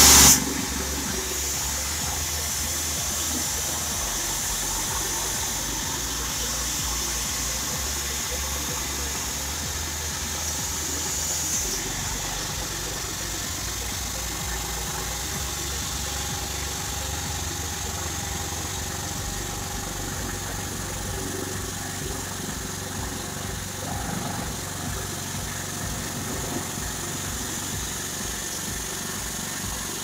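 Electric pressure washer running steadily, its pump humming with a low pulsing beneath the hiss of the water jet spraying onto the aluminium fins of an AC evaporator coil. A louder burst of hiss cuts off right at the start.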